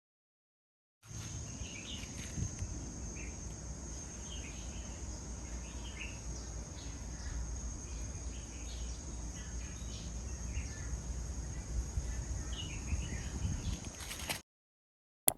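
Quiet outdoor ambience: faint, scattered short bird chirps over a steady high-pitched hum and a low rumble. The ambience cuts off near the end, followed by a brief click.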